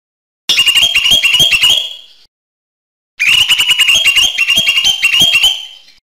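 Cucak hijau mini (green leafbird) singing in two bursts of fast, sharp repeated notes, each lasting about two seconds, with a pause of about a second between them.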